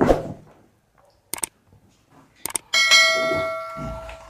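Handling knocks and a couple of light clicks, then a struck metal object rings like a small bell and dies away over about a second and a half.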